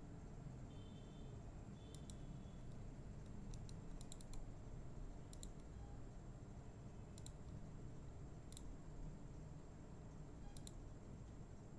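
Faint, scattered clicking at a computer: about eight sharp clicks at irregular gaps, some in quick pairs, over a low steady hum.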